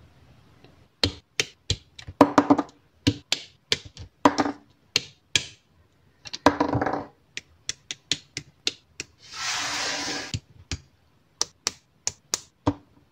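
Hard plastic model-kit parts clicking and snapping as pieces are pressed together and broken off the sprue: a quick irregular run of sharp clicks, some in little clustered rattles. About ten seconds in there is a short rustling hiss lasting about a second.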